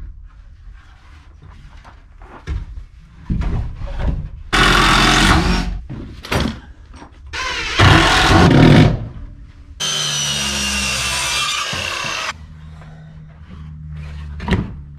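Handheld power tool working wood in several bursts, the longest about two and a half seconds with a steady motor note. Short knocks and handling sounds come between the bursts.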